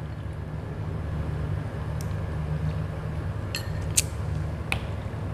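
A few light clicks of a metal spoon against a small glass bowl, the loudest as the spoon is set down in it, over a steady low hum.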